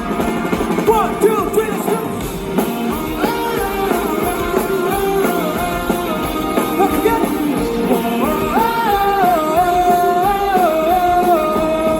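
Live rock band playing, with a sung melody line over electric guitars and drums.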